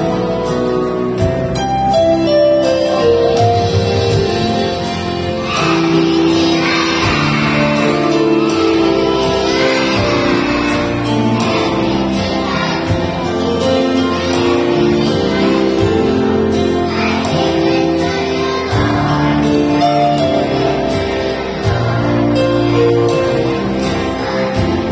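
Backing music with a group of young children singing along, the voices coming in about five seconds in.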